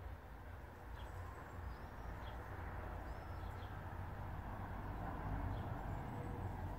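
Outdoor garden ambience: a steady low rumble and hiss, with a few faint, short bird chirps scattered through it.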